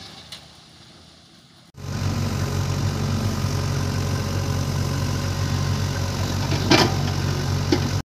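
After a faint start, a heavy diesel engine begins abruptly, running steadily at low revs, with two short knocks near the end.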